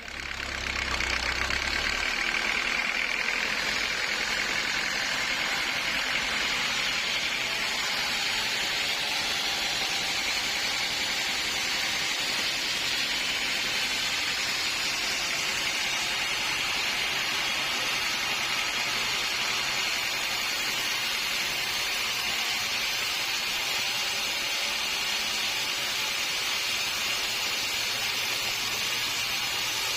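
Sawmill machinery running with a loud, steady noise that starts abruptly, with a low hum only in the first two seconds.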